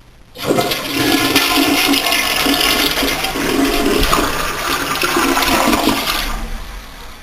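Household flush toilet being flushed: a sudden rush of water starts about half a second in, runs loud for about six seconds, then falls away to a quieter trickle near the end.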